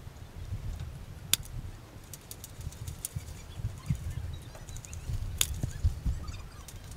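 Two sharp cracks about four seconds apart, with scattered lighter clicks, over a steady low rumble of wind and handling on a body-worn action camera.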